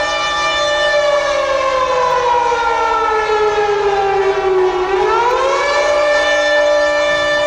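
A siren-like wail that slides slowly down in pitch and then swings quickly back up, over a steady sustained chord.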